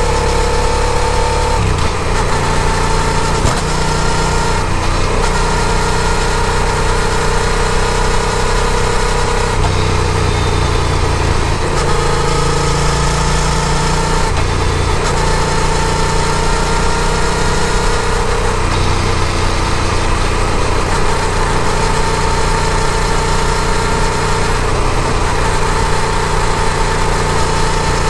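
Yamaha FZ-07's 689 cc parallel-twin engine running during a ride, its note shifting up and down in steps every few seconds with throttle and gear changes, over a steady rush of noise.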